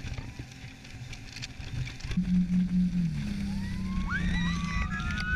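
A speedboat's engine runs under wind and water noise. About two seconds in it grows louder, with a steady hum. Near the end, several high whoops that glide upward overlap the engine.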